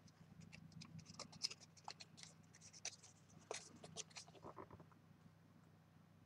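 Faint rustling and small clicks of cardstock being handled and pressed together by hands, dying away after about four and a half seconds.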